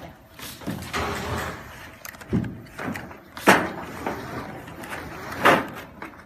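Semi-automatic carton folder-gluer running as flattened corrugated boxes slide out and are knocked together into stacks. There are irregular slaps and knocks, the loudest two about three and a half and five and a half seconds in.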